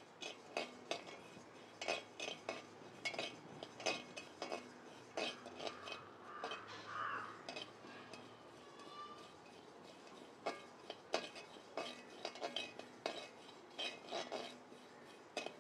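A metal spatula stirs and scrapes mustard seeds around a dry metal kadai, making irregular clinks and ticks. The seeds are being dry-roasted until they pop.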